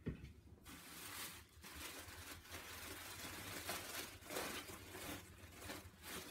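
Plastic wrapping crinkling and rustling as a bagged item of baby clothing is handled and opened, after a short thump at the very start.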